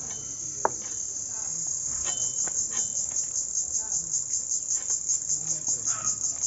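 Insects chirring loudly in a high shrill band, steady at first and then pulsing rapidly from about two seconds in. Beneath it come scattered short knocks and scrapes of hilsa fish being scaled and cut against bonti blades, one sharp knock near the start.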